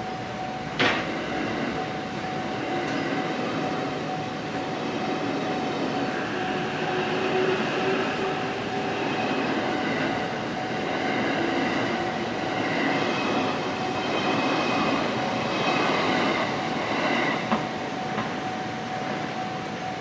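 Japanese railway level-crossing warning bell ringing steadily while a train runs past, its rumble building up and peaking before fading. A sharp knock comes about a second in. The bell stops at the end as the crossing clears.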